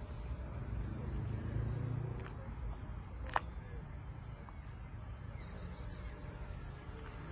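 Steady low outdoor rumble, with one sharp click a little after the middle.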